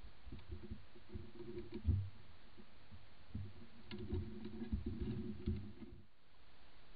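A European badger right beside the trail camera, sniffing and rustling at the cloth on the swing: irregular muffled low thumps and rustle in two spells, stopping about six seconds in.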